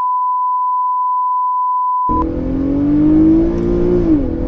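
A steady test-tone beep cuts off about two seconds in. It gives way to an Infiniti G37's VQ V6, fitted with a cold air intake and modified exhaust, pulling hard from inside the cabin. The engine pitch climbs, then drops sharply near the end as a paddle-shifted upshift goes through.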